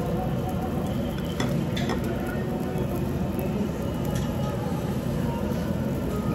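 Steady restaurant background noise with a few light clicks of metal chopsticks against food and lettuce, about one and a half, two and four seconds in.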